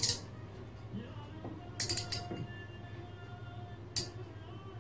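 Sharp clicks of small clock parts handled and worked in the hands: one at the start, a quick run of several about two seconds in, and one more near the end, over a steady low hum.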